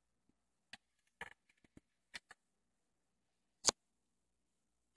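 Scattered light clicks and knocks from handling a Pioneer PL-50 turntable as a record is set on its platter. There are about half a dozen small clicks, then one sharper click a little before the end.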